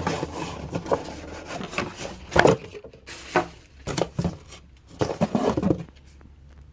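A product box and its packaging being handled and rummaged through: irregular scrapes, rustles and light knocks that die down about six seconds in.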